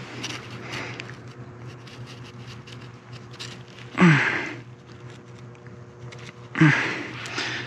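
A man breathing hard with excitement: two loud breathy sighs, each dropping in pitch, about four seconds in and again near the end, with light clicks and rustling between them.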